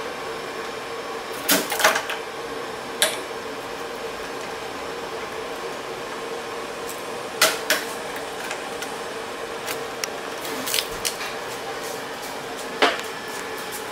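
Sharp metallic clicks and knocks from the clamps and lever of a band saw blade clamping jig, a handful spaced a few seconds apart, over a steady machine hum.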